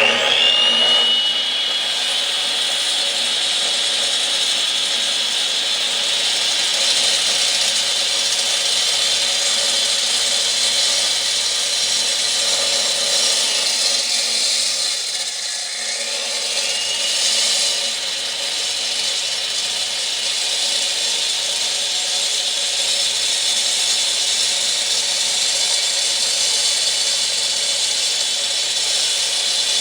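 Power tool cutting through the material for a door opening, its motor giving a steady high whine over a cutting hiss. About halfway through, the pitch sags briefly as the tool bogs under load, then winds back up.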